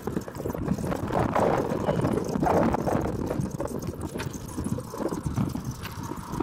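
Golf cart driving over a bumpy dirt and gravel shoulder, its body rattling and knocking irregularly as it jolts along.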